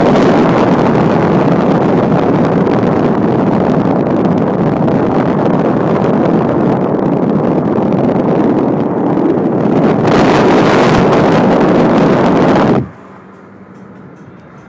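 Wind and road noise rushing in at an open car window as the car drives along, loud and steady. It drops off suddenly about thirteen seconds in to a much quieter hum of the car's cabin.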